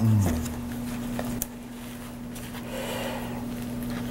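Soft rustling and rubbing of a disposable respirator mask and its straps being pulled over a head, with faint ticks, over a steady low hum. A brief, louder low falling tone at the very start.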